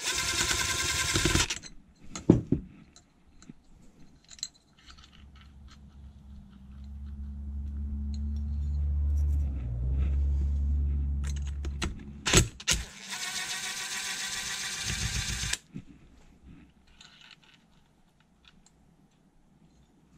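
Cordless DeWalt impact driver hammering out the screws of a BMW K100 alternator housing: a burst of about a second and a half at the start and a longer one of about three seconds later on. A low rumble builds up between the two bursts, with light clicks of parts being handled.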